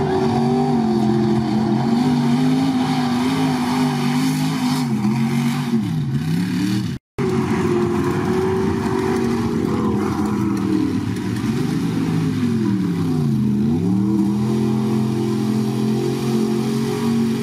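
Big-block Ford V8 of a one-ton mud bog truck at high revs, tearing through a mud pit. The engine note drops sharply and climbs back twice. The sound cuts out briefly about seven seconds in.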